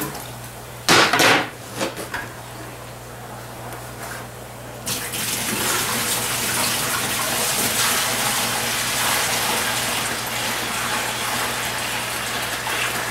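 Hydroponic nutrient solution being poured from a bucket into a reservoir tank: a steady pour and splash that starts about five seconds in and keeps going. Before it, a couple of short loud knocks in the first two seconds.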